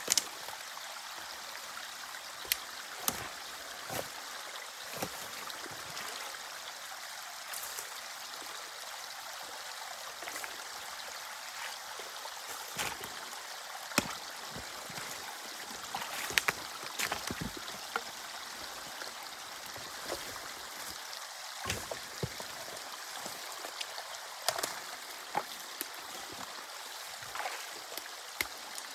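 Water rushing steadily through a breached beaver dam in a drainage canal, with irregular sharp clicks and knocks throughout.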